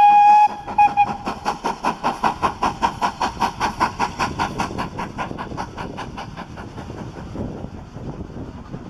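A BR Standard Class 4MT 2-6-0 two-cylinder steam locomotive gives a short whistle, with a brief second toot about a second in. It then passes with a rapid, even exhaust beat that fades after about five seconds, leaving the rumble of its coaches' wheels on the rails.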